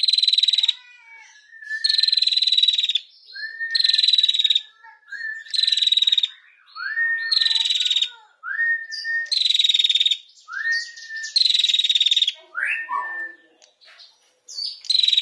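Female prenjak, a small Indonesian warbler, singing its rapid rattling 'ngetir' song: about seven loud, buzzy trills in a row, each about a second long and followed by a short rising note. Near the end the rhythm breaks into a few scattered short calls.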